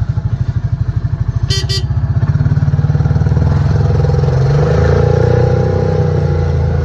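A vehicle's engine running at low speed, with a fast low pulsing that picks up a little a couple of seconds in. Two short high beeps sound about 1.5 s in.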